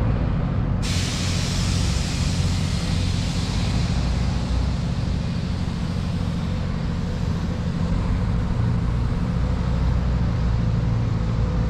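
Steady outdoor background noise: a low rumble with an even hiss over it and no distinct events.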